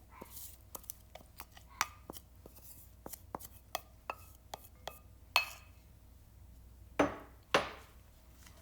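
Kitchen food-prep sounds: a run of short, irregular taps and knocks of utensils on a board and dishes, with a louder tap about five and a half seconds in and two louder, ringing clinks near the end.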